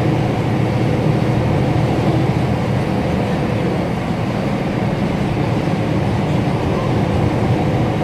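Mercedes-Benz OF-1724 city bus's OM 926 LA six-cylinder inline diesel engine running steadily, heard from on board the bus, with a slight dip in loudness near the middle.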